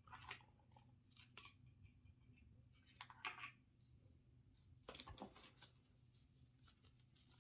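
Faint handling sounds: a few brief rustles and light clicks as a thin earphone cable and small parts are handled, with the loudest stretch about three seconds in and another cluster about five seconds in.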